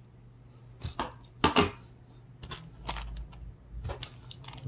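A few sharp knocks, then a run of small clicks and crinkles: drone parts handled on a hard tabletop and a small plastic zip bag of spare screws and nuts picked up and opened.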